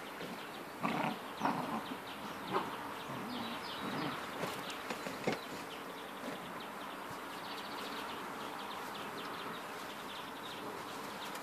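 Irish Setter puppies play-fighting in and around a fabric play tunnel, with a few short yips and grunts in the first five seconds. After that the background is steady, with faint high chirping.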